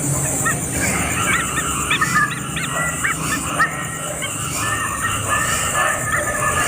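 Small birds chirping: a quick run of short, high, rising-and-falling chirps in the first half, with fewer calls later.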